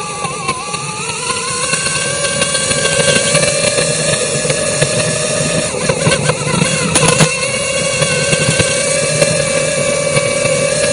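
Racing hydroplane engines running hard, a high steady engine note that climbs in pitch and loudness over the first couple of seconds and then holds.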